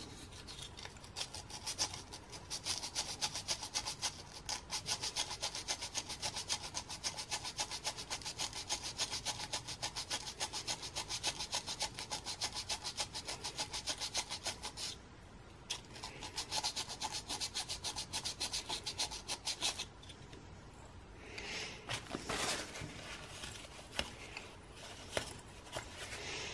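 Sandpaper rubbed back and forth by hand on a trolling motor's brushes, shaping them to the curve of the rotor: fast, even scratchy strokes. The strokes break off briefly about 15 s in and stop about 20 s in, followed by a few scattered handling sounds.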